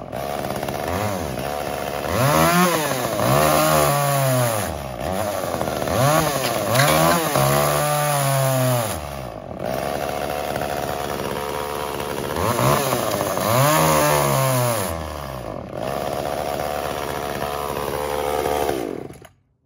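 Echo CS-345 two-stroke chainsaw cutting into a wooden stump, its engine speed rising and sagging over and over as the chain is eased into the wood, with steadier stretches in between. It bogs down under load, which the owner puts down to the carburetor's high-speed mixture being set slightly too lean.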